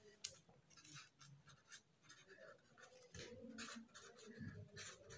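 Faint scratching of a felt-tip marker writing a word on paper, in a series of short strokes.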